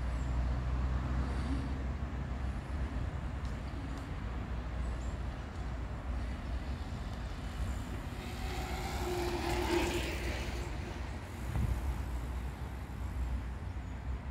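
Steady low rumble of traffic, with a louder vehicle pass about eight seconds in that carries a held tone, swells and fades over some three seconds.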